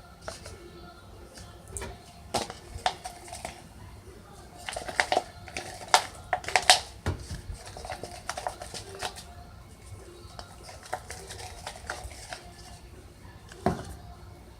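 Irregular clicks, taps and scrapes of a utensil against a plastic bowl as slime is stirred, busiest in the middle with a cluster of sharp knocks.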